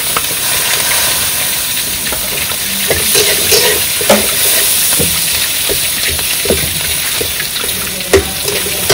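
Chilli mushroom frying in hot oil in a pan: a steady sizzle, with a spatula stirring and scraping and a few short knocks against the pan, the loudest near the end.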